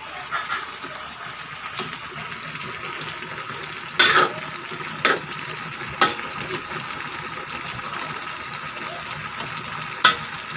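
Coconut-milk stew simmering in a metal wok, a steady bubbling hiss, while a metal ladle stirs it and knocks against the pan four times, the loudest about four seconds in.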